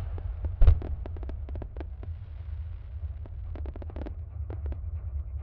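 Fireworks going off: one deep boom shortly after the start, then clusters of sharp, quick cracks and pops through the middle.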